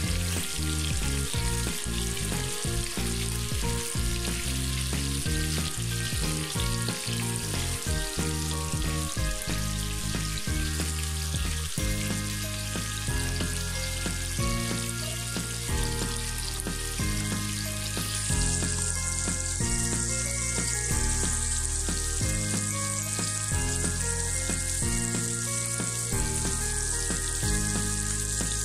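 Marinated snakehead fish pieces sizzling steadily as they fry in hot oil, with a spatula knocking and moving them in the first few seconds. The sizzle grows brighter about two-thirds of the way through, over soft background music.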